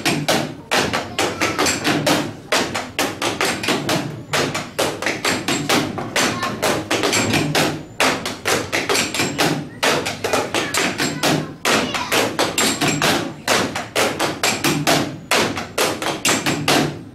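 An ensemble beating drumsticks on plastic chairs and wooden school desks, playing a fast, rhythmic pattern of knocks and taps, several strokes a second, with a few short pauses between phrases.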